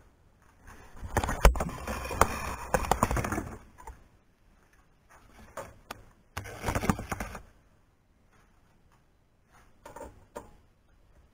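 Hands handling parts and cable on a workbench: two bursts of clattering and rustling with sharp clicks, then a few light clicks near the end as hands work at a joint of the aluminium extrusion frame.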